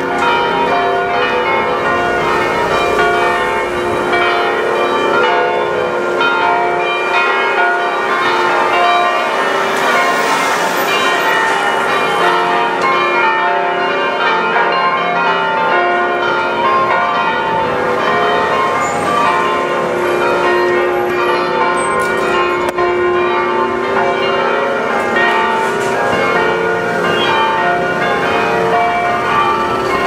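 Several church bells, hung in an open metal frame on the church roof, ringing together in a continuous peal, their strikes overlapping without a break.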